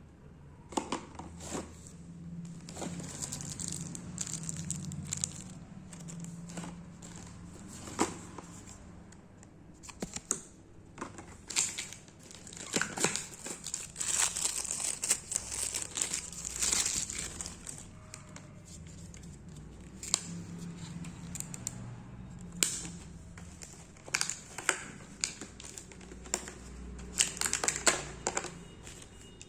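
Packaging being handled and opened by hand: plastic and paper crinkling and tearing, broken by many sharp clicks and taps, busiest about halfway through and again near the end.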